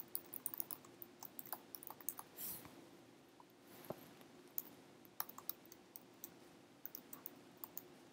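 Faint typing on a computer keyboard: quick runs of key clicks, with a short pause about halfway through.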